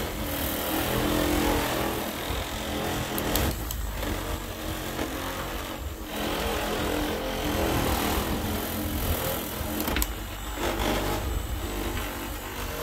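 Small, inexpensive corded electric buffer from Harbor Freight running steadily, its pad working buffing compound over a riding mower's painted hood. The motor hum holds steady, with short dips in level about four and six seconds in and a few faint clicks.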